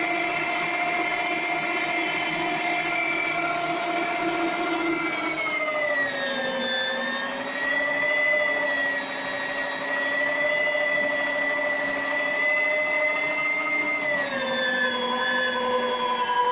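Electric meat grinder running steadily as it minces peeled fava beans and herbs, a loud, even motor whine. The pitch drops a little about five seconds in and again near the end.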